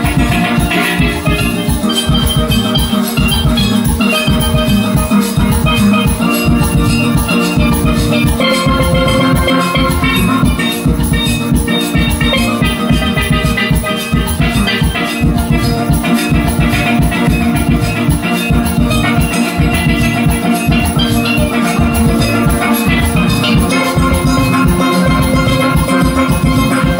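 Steelband playing live: many steel pans sounding quick melodic notes over drums keeping a steady, driving beat.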